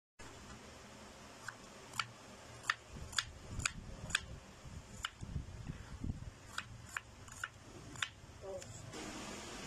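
Kitchen knife slicing a red onion on a wooden chopping board: the blade taps the board with each cut, about a dozen sharp taps at an uneven pace of roughly two a second, starting about a second and a half in.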